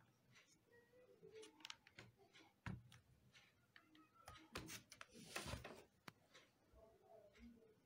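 Faint clicks and light knocks from an Acer laptop being handled and its lid closed on freshly repaired hinges, with a sharp knock near three seconds in and a brief rub about five seconds in.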